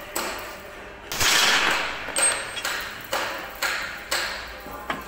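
Hammer blows on steel, about two a second, each ringing briefly, with one heavier blow about a second in.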